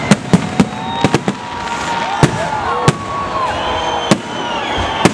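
Aerial fireworks display: shells bursting overhead in an irregular string of sharp bangs, about ten in five seconds, over a continuous hiss and crackle.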